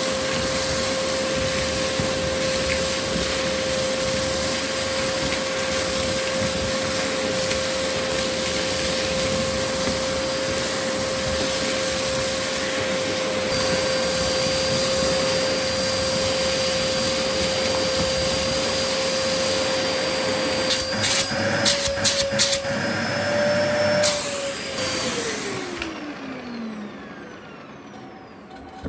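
Vacuum cleaner motor running steadily with a high whine over a rush of air. Near the end there are a few sharp clatters and the pitch lifts slightly. Then the motor is switched off and the whine falls away as it spins down.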